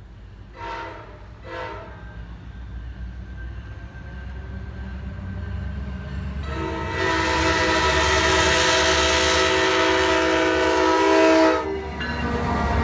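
A VRE commuter train's diesel locomotive horn sounding two short toots, then one long blast of about five seconds that ends abruptly, over the rising rumble of the train as it approaches.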